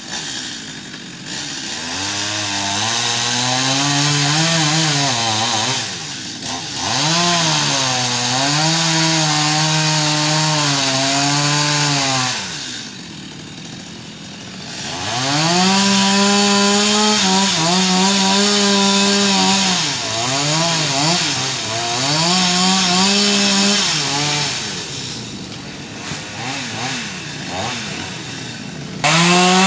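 Two-stroke petrol chainsaw cutting a tree, revving up and holding high in long pulls, then easing off. It drops back to a lower idle about 13 seconds in and again near the end.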